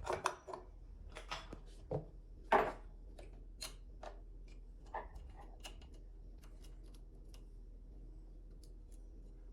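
Irregular metallic clicks and clacks of a new chainsaw chain and bar being handled and fitted, busiest in the first few seconds with the loudest clack about two and a half seconds in, then only faint ticks.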